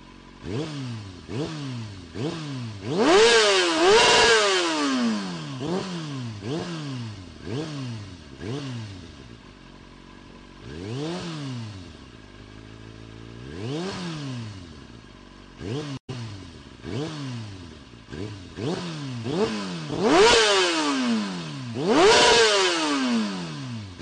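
Motorcycle engine revving in repeated throttle blips, the pitch jumping up and falling away about once a second. There are longer, louder revs a few seconds in and again near the end, and a short steadier idle in the middle.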